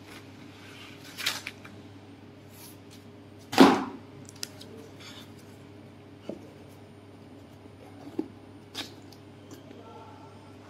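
Honeycomb paperboard handled and folded along its V-grooves: a few short scrapes and taps of cardboard, the loudest about three and a half seconds in. A steady low hum runs underneath.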